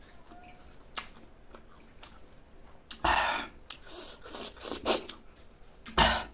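Close-miked mouth sounds of a person eating fruit: quiet chewing with a click about a second in, then from about three seconds in a run of loud, short breathy hisses and mouth noises, with another strong one near the end.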